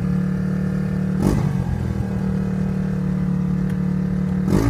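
A motor running at a steady, unchanging pitch, with a short knock about a second in and another near the end.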